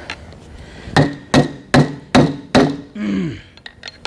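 Five hammer blows on a metal part of a transfer case being torn down, each with a short metallic ring, about two and a half blows a second. A short low sound falling in pitch follows the blows.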